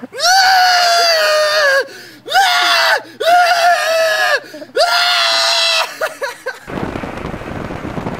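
A young man screaming four times, each a long, high-pitched, loud scream of about one to one and a half seconds, with short breaks between them. Near the end it gives way to a steady rush of wind on the microphone.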